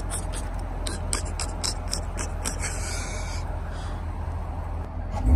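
Car engine idling as a steady low rumble, with a run of light clicks and rubbing sounds over the first few seconds. Right at the end an engine revs up sharply.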